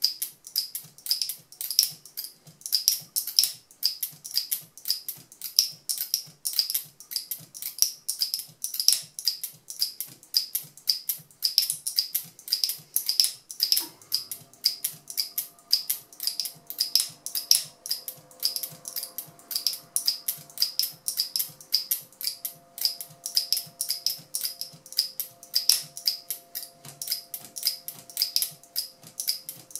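Plastic speargun camera mount's locking clamp being snapped onto and off a speargun barrel over and over: a quick, continuous run of sharp clicks, several a second, as the lock is cycled in a durability test. A faint steady hum of a few tones joins in about halfway.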